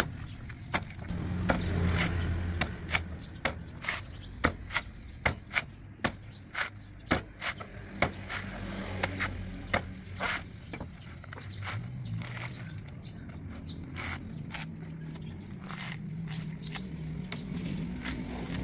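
Cleaver chopping the husk of a green young coconut on a wooden board: sharp strikes about two a second, thinning out and getting softer in the second half. A low steady hum runs underneath.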